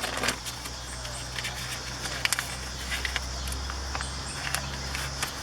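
Scattered light clicks and knocks from handling car door parts, over a steady low hum and faint insect chirping.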